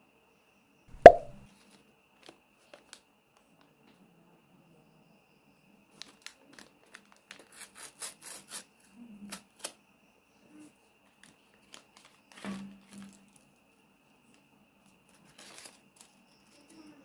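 Paper packet being torn and unfolded by hand: a cluster of short, crisp tearing and crackling sounds over a few seconds. A single sharp knock comes about a second in and is the loudest sound, and a soft thud follows later.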